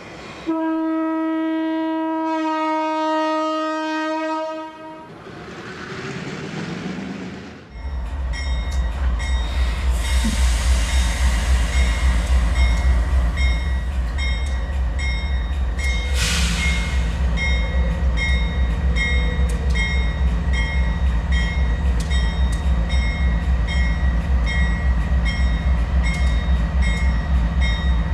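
A held horn-like chord sounds for about four seconds, followed by a rising whoosh. From about eight seconds in, GE diesel-electric freight locomotives approach slowly with a deep, pulsing engine rumble, over a steady, evenly repeating high ticking.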